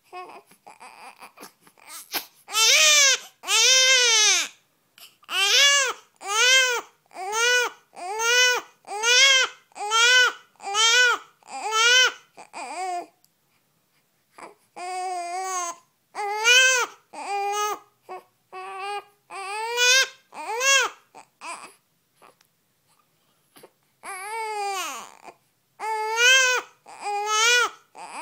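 Two-week-old newborn crying: a few faint whimpers, then loud rhythmic wails, about one a second, each rising and falling in pitch, broken twice by short pauses.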